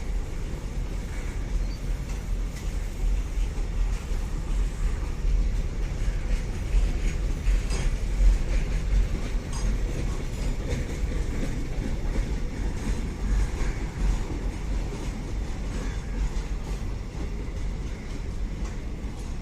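Passenger train coaches of the Trivandrum Mail rolling past, a steady heavy rumble with rail-joint clatter and a few sharp clicks from the wheels.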